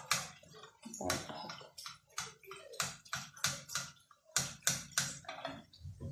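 Metal spoon scooping hot frying oil in a pan and ladling it over frying rghaif dough, each stroke a short splash and sizzle with the spoon clicking on the pan, about three a second. There is a brief pause about four seconds in. The hot oil is basted on so the dough puffs up.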